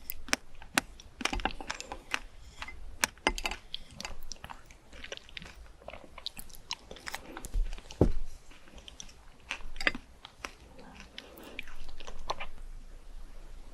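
Fruit being bitten and chewed: a run of crisp crunches and wet mouth clicks, with one louder crunch about eight seconds in.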